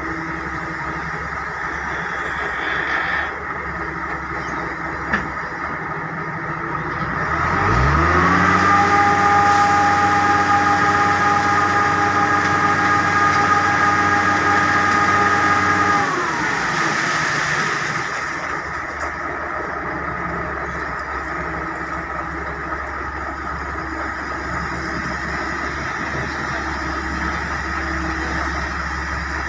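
Heavy diesel engine of construction machinery running steadily, revving up about eight seconds in, holding high revs for several seconds, then dropping back to a lower speed.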